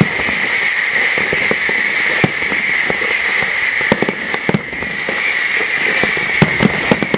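Aerial firework shells bursting in a rapid barrage: many sharp bangs over a continuous crackling hiss, with the bangs thickest about four seconds in and again near the end.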